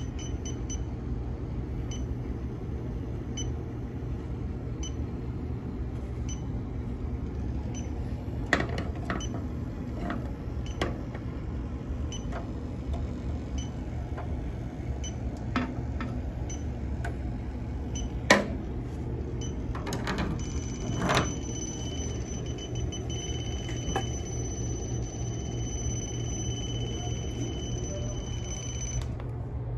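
Electronic refrigerant leak detector ticking with a high beep a little more than once a second, then changing to a steady unbroken tone about two-thirds of the way in: the sign that it is sensing refrigerant. A few knocks of handling and a steady machine hum lie underneath.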